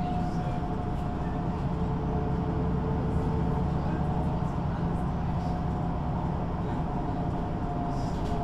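MAN NG 313 articulated city bus under way: its diesel engine and ZF automatic gearbox run at a steady pace, a constant drone with a steady higher tone over road noise.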